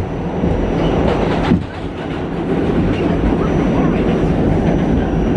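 R46 subway car running at speed through the tunnel, heard from inside the car: a steady, loud rolling noise of wheels on rail. There is a single knock about a second and a half in.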